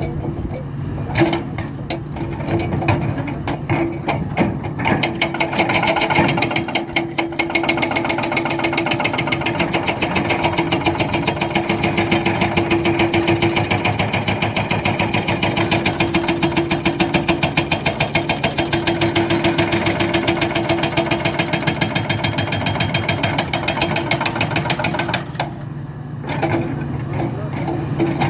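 Hydraulic breaker on a Hidromek 300LC excavator hammering in a fast, even rhythm over the excavator's running engine, with a brief let-up near the end.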